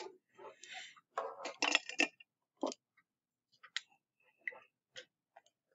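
Scattered light clicks and taps of small objects handled on a desk, with a denser run of knocks and scrapes about a second in.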